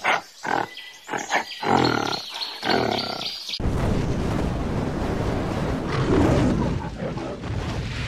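A string of short animal calls, then about three and a half seconds in a sudden loud rush of fiery noise with a big-cat roar, a lion logo sound effect, that slowly fades away near the end.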